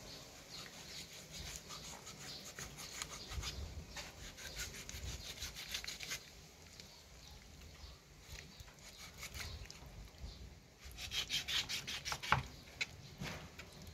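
Kitchen knife sawing back and forth through raw duck skin, meat and joints, a run of short scraping strokes. The quickest run of strokes comes about eleven seconds in, followed by a sharp knock.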